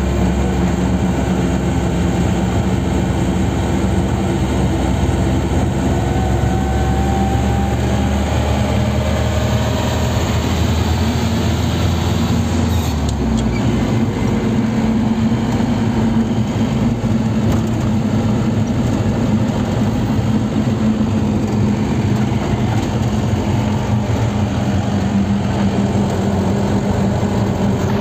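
Car engine and road noise heard from inside the cabin while driving, steady throughout, with a deep low hum that drops away abruptly about halfway through.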